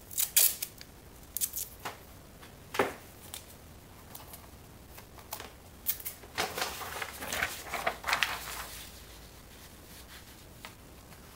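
Sheets of paper being handled: a few crisp snaps and crackles, then a few seconds of denser rustling as a sheet is laid over the drawing to mask its lower part.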